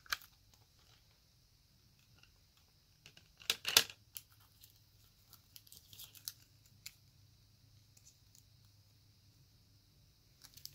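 Plastic CD jewel case being handled and opened: a sharp click at the start, a cluster of loud plastic clacks about three and a half seconds in, then light crinkling of the plastic wrap and paper.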